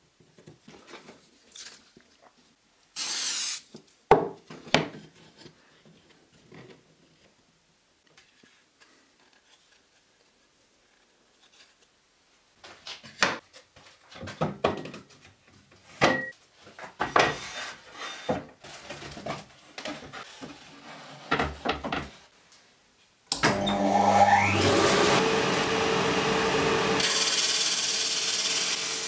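Scattered knocks and handling noises of wood and tools on a workbench. Near the end a lathe-driven drum sander starts, its pitch rising as it spins up, then runs steadily while a glued veneer strip is fed under the sanding drum.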